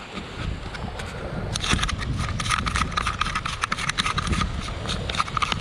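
Close, irregular crunching and rustling scrapes from the angler moving about on a gravelly, shell-strewn beach: shoes on the shells and clothing rubbing near the microphone. They begin about one and a half seconds in, over a low wind rumble.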